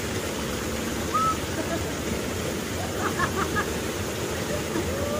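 Steady rush of flowing water at a hot spring pool, with faint distant voices now and then.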